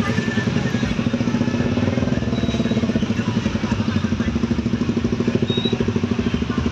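A small engine running steadily close by, with a rapid, even throb.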